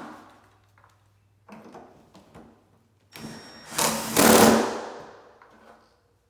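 A few knocks and rattles of the door and hinge hardware being handled. Then, about three seconds in, a cordless drill/driver runs for roughly two and a half seconds, driving a screw into the refrigerator door's hinge bracket.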